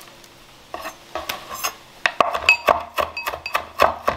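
Chef's knife chopping fresh rosemary on a wooden cutting board. Quick knocks of the blade on the wood start about three-quarters of a second in and speed up to about four or five a second in the second half.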